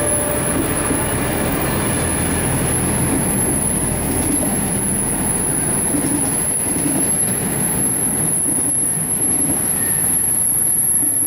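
A rolling-highway freight train's low-floor wagons, loaded with lorries, rolling past close by: a steady rumble and rattle of wheels on rail, with a thin high-pitched wheel squeal over it.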